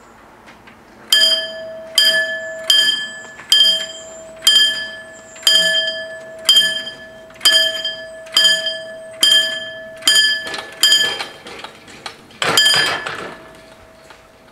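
Level-crossing warning bell striking steadily, about once a second, as the crossing's two barrier arms lower, starting about a second in. Near the end comes a louder, rougher clash, about when the barriers come down, and then the bell stops.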